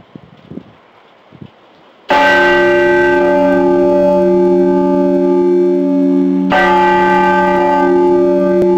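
Large bell hung in a yoke, struck about two seconds in and again about four seconds later, each time ringing loudly with several clear tones sounding together. Before the first strike there is only faint wind noise and a few low thumps.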